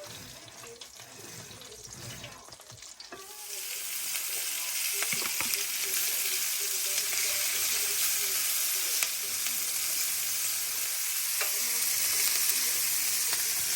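Pork chops frying in hot oil in a pan: a sizzle that starts abruptly about three seconds in and then holds steady, with a few light utensil clicks.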